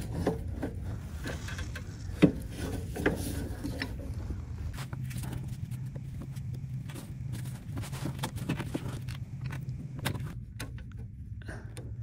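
Small metallic clicks and taps from pliers and gloved hands working the carburetor's throttle linkage to unhook a little spring, with a few sharper clicks in the first four seconds. A steady low hum runs underneath.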